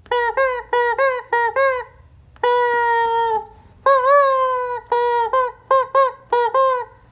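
Squeeze-toy rubber chicken squawking as it is squeezed: a quick run of short squawks, two long drawn-out squawks in the middle, then another run of short ones.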